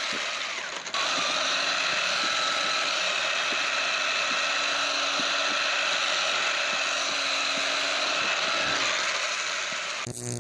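Electric motor and gear drive of an SG 1603 1/16-scale 4WD RC car whining steadily at speed, with faint irregular ticks underneath. The whine starts about a second in and stops just before the end.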